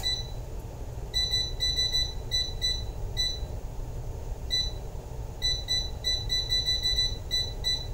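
Gourmia digital air fryer's touch panel beeping with each button press: short, identical high beeps, some single and some in quick runs of several a second, as the cook temperature and time are set before starting.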